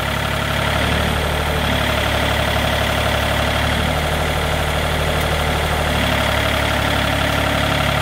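Wood-Mizer LT40 sawmill's engine running steadily at idle, with no cut being made.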